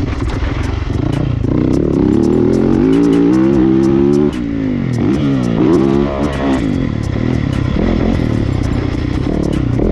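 Yamaha motocross bike's engine revving hard on the track, the pitch climbing, dropping sharply on a shift about four seconds in, then falling and rising again through the next corner. Background music plays underneath.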